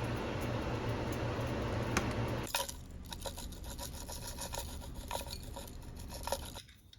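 Kitchen cooking sounds while making oyakodon: a steady hiss over a low hum, giving way about two and a half seconds in to lighter scraping and scattered clicks of utensils.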